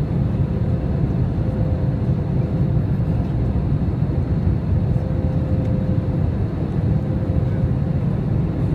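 Airbus A321 cabin noise heard from a window seat in flight: the steady low rumble of the engines and airflow, with a faint steady tone above it.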